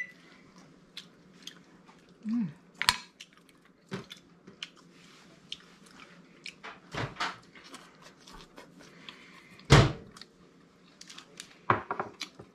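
Scattered clicks and knocks of a metal fork and mussel shells against a glass baking dish, with one louder knock near the end.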